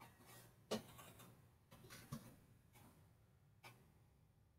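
Near silence broken by a few faint, sharp clicks of a computer mouse and keyboard, spaced roughly a second apart.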